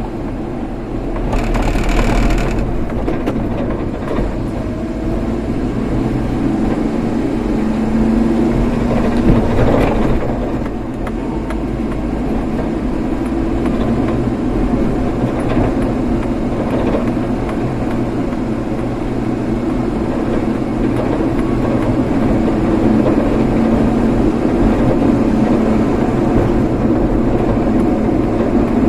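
Car on the move: steady engine and road noise, with a brief louder hiss about two seconds in.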